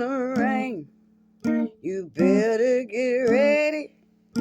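A voice singing a gospel melody with a wavering vibrato, in two phrases with a short pause between them, accompanied by a plucked acoustic guitar.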